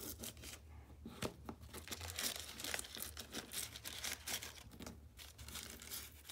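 A used paper coffee filter being torn by hand around the rim of a plastic lid: a run of short, irregular rips with paper crinkling.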